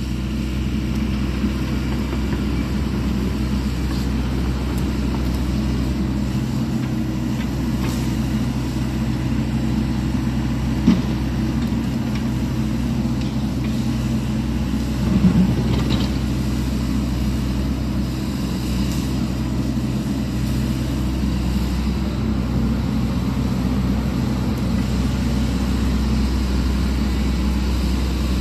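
Sany SY80 excavator's diesel engine running steadily while clearing brush. There is one sharp crack about halfway through and a short louder crunch a few seconds later.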